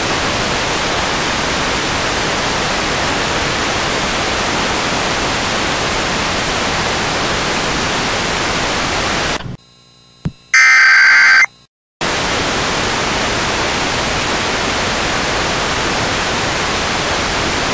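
Television static, a steady loud hiss. About halfway through it breaks off: a low hum and a click, then a brief, very loud electronic tone of about a second, then a moment of silence before the static comes back.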